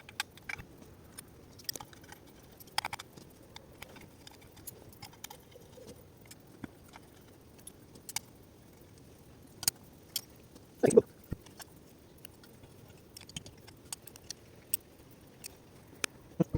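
Small metal engine parts clicking and clinking as they are handled and set down, with one louder knock about eleven seconds in.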